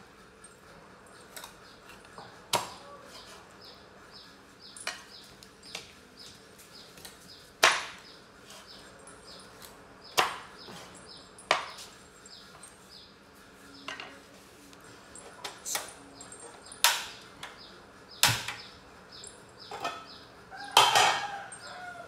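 Cleaver chopping through fish on a wooden cutting board: single sharp knocks at irregular intervals, one to several seconds apart. Near the end a short, wavering voice-like cry.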